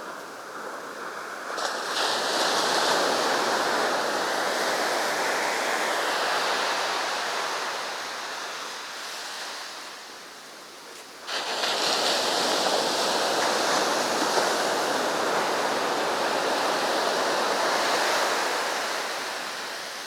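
Sea surf breaking on the beach in two surges: the first swells up about two seconds in and slowly ebbs, the second crashes in suddenly about halfway through and washes on before fading near the end.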